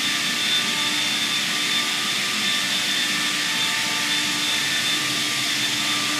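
Shop machinery running steadily: a motor whine with a thin high tone over an even rushing hiss, of the kind a shop vacuum or air blower makes.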